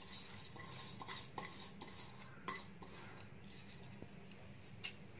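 Faint, scattered taps and clinks of a plastic bowl against a steel mesh strainer as wet rice is tipped out of the bowl into it, the sharpest tap coming near the end.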